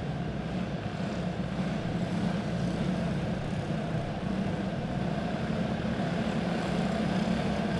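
Several go-kart OHV clone engines, single-cylinder four-strokes, running together in a steady drone as the pack circles at pace speed before the green flag. The drone grows slightly louder over the stretch.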